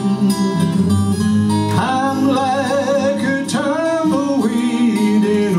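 A country song played live on two strummed acoustic guitars, with a man's singing voice coming in about two seconds in.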